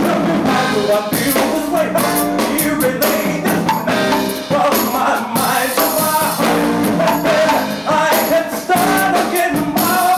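Male vocalist singing live into a microphone over a band, with drums keeping a steady beat.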